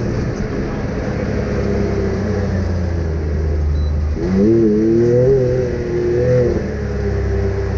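Off-road vehicle's engine running with a steady low drone, revving up about four seconds in and easing back down about two seconds later.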